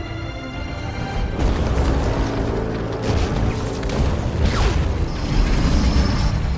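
Film soundtrack: score music with a loud explosion and rumbling, crashing destruction effects breaking in about a second and a half in and running on under the music.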